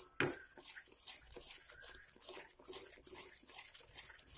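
Spoon stirring thick, bubbling gram-flour batter for Mysore pak in a metal pan, a soft wet scraping that repeats about three times a second, with one clink of the spoon against the pan just after the start.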